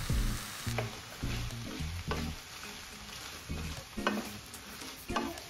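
Prawn and noodle stir-fry sizzling in a hot frying pan as it is stirred, with a handful of clicks from the utensil against the pan. Faint background music sits underneath.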